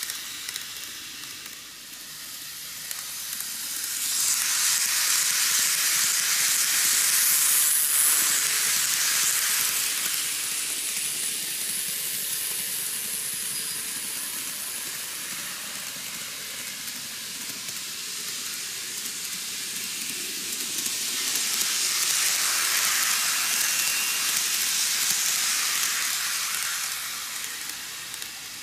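N gauge model trains running on superelevated curved track: a steady hiss of wheels and motor on the rails. It swells twice as a train comes round near the microphone and fades as it moves away.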